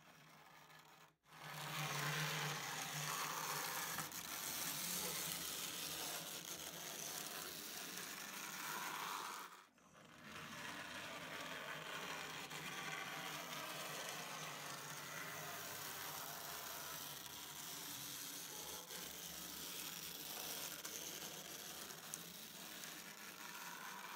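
N-scale model trains running: small locomotive motors whirring and wheels rattling over the track in a steady, noisy mechanical hum, which breaks off briefly about ten seconds in. The running is not quiet, which the owner puts down to locomotives that still need new wheels and motor adjustment.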